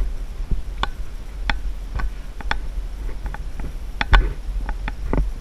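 Footsteps on a sandy trail, a short sharp tick about every half second, over a low steady rumble of wind on the microphone.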